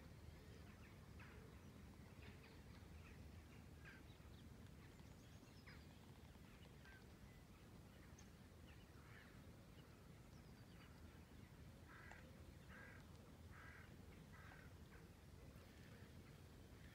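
Near silence with faint distant birds calling now and then, including a run of four evenly spaced calls about twelve seconds in, over a low steady rumble.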